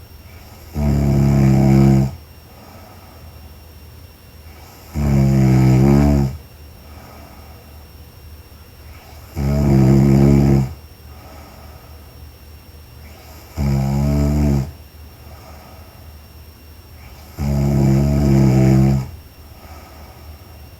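A young woman snoring in her sleep: five loud snores at an even pace, about one every four seconds, each lasting a second or more, with quieter breathing between.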